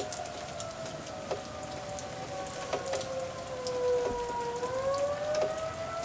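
Steady rain falling, with sharp drips from individual drops, over an outdoor warning siren. The siren's wail sinks slowly in pitch and starts rising again about four and a half seconds in.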